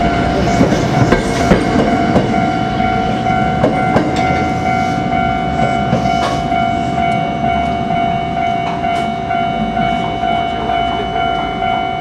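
Tokyo Metro 01 series subway train rolling across a street level crossing, wheels clattering over the rail joints, the rumble easing over the second half as it moves away. A steady high tone sounds throughout.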